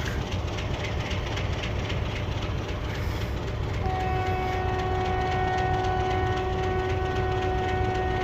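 Passenger train rumbling along the rails. About halfway in, a locomotive horn sounds one long, steady blast on a single note that lasts to the end.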